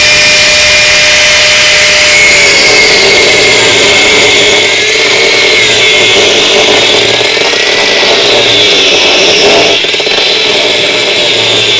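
Bosch angle grinder with a thin cutting disc running under load, slicing into the washing machine drum's aluminium hub nut. Its high motor whine drops in pitch about two and a half seconds in as the disc bites, then wavers with the cutting pressure.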